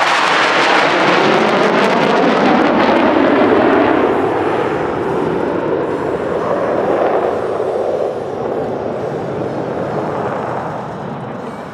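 F-16 fighter jet engine noise on a pass: loud rushing jet noise with a sweeping tone and crackle in the first few seconds, then fading steadily over the second half.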